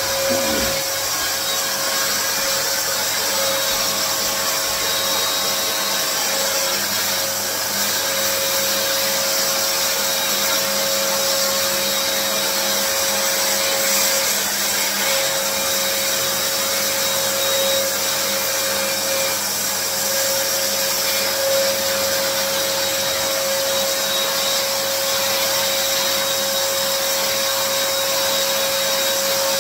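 Electric paint sprayer's turbine unit running loud and steady, blowing air and paint through the hose and spray gun with an even whine at a constant pitch.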